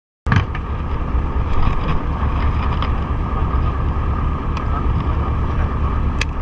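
Wind buffeting the microphone of a GoPro on a small fishing boat at sea: a steady low rumble under a constant hum, cutting in suddenly just after the start, with a few faint clicks.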